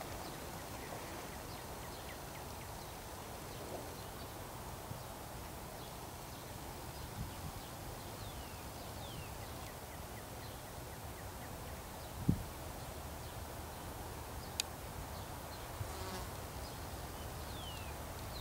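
Quiet outdoor ambience with a steady low hum and a buzzing insect, a few short downward bird chirps now and then, a single thump about twelve seconds in and a sharp click a couple of seconds later.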